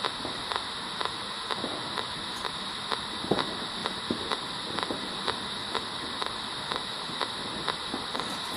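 P-SB7 Spirit Box sweeping the AM radio band: steady radio static broken by a short click about twice a second as it steps from station to station, with one louder click a little past the middle.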